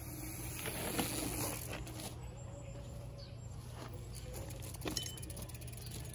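Mountain bike riding downhill on dirt: a steady low rumble of tyres and wind, with sharp knocks about a second in and again just before five seconds, and a fast, even ticking near the end.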